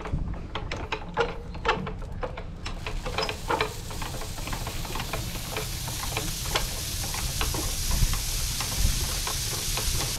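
Dairy concentrate feed pellets pouring from a silo outlet chute into a metal bin. Scattered clicks and ticks come first, then from about three seconds in a steady rushing hiss as the pellet flow runs freely.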